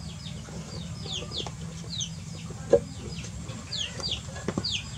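Chicks peeping over and over in short, high, downward-sliding chirps. A sharp click a little past the middle, with a few fainter clicks near the end.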